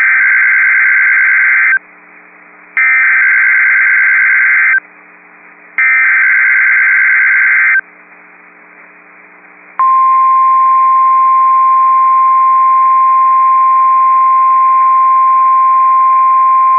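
Emergency Alert System SAME header: three identical bursts of buzzy digital data, each about two seconds long with a second's gap between them. About ten seconds in comes a single steady 1050 Hz NOAA Weather Radio warning alarm tone, the signal that an emergency alert message follows.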